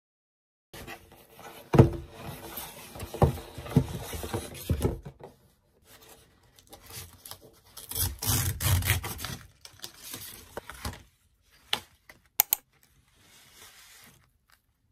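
Cardboard mailer envelope being torn open along its tear strip: tearing and paper rustling in two bouts, then a few light handling clicks.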